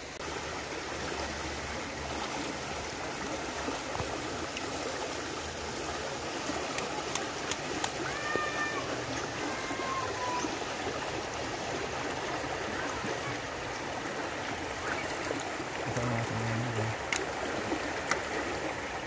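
Shallow river rushing over rocks: a steady hiss of running water. About halfway through, two short high whistling tones sound briefly over it.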